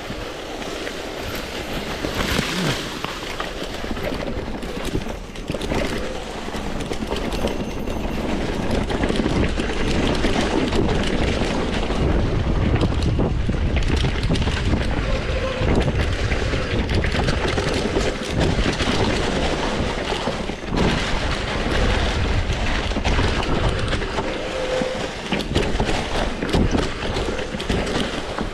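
Electric mountain bike ridden over a rough trail: a continuous rattle of the bike and its tyres over stones and roots, with a low rumble that gets louder after the first few seconds.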